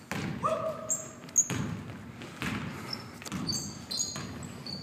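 Basketball bouncing irregularly on a hardwood gym floor, with the loudest bounce about a second and a half in. Sneakers squeak briefly on the court, and the sound echoes around a large gym.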